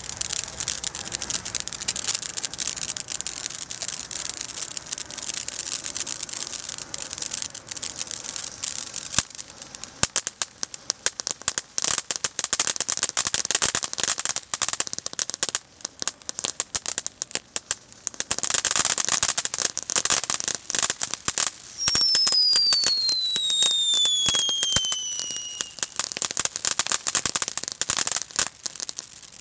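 Noisy Niagara ground fountain firework burning, throwing sparks with dense, continuous crackling that swells and eases several times. About three-quarters of the way through, a whistle falls steadily in pitch for about four seconds.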